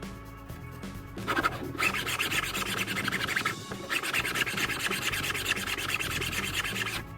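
Wood being abraded by hand: a steady, scratchy rubbing that starts about a second in, pauses briefly midway and stops near the end, over faint background music.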